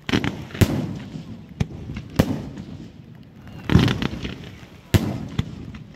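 Fireworks display: a string of about seven sharp bangs from bursting shells, irregularly spaced, the biggest followed by a rumbling echo that trails off.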